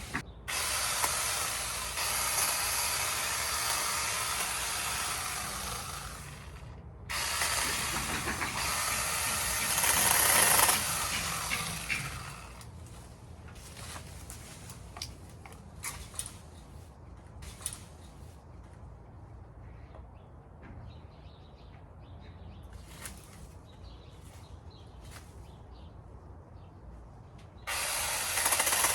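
Battery-powered 6-inch mini chainsaw running in bursts as it cuts branches: about six seconds of running, a short break, then five more seconds. A quieter stretch of scattered snaps and rustles follows, and the saw starts again near the end.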